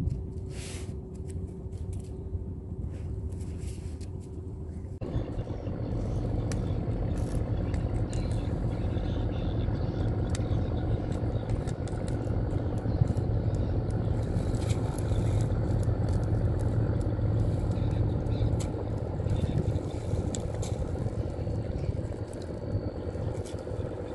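A motor running steadily, with scattered clicks. About five seconds in the sound changes abruptly and the hum becomes louder and fuller.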